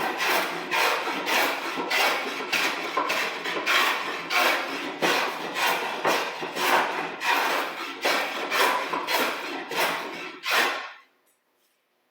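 Scrub plane shaving a rough board in quick diagonal strokes, about two rasping cuts a second, taking down the high convex middle of the face to flatten it. The strokes stop about eleven seconds in.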